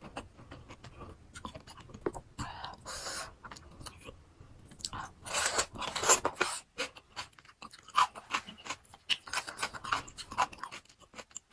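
Chewing and crunching of crisp fresh fruit, close to the microphone: irregular crisp bites and wet chews in spells, the loudest about six seconds in.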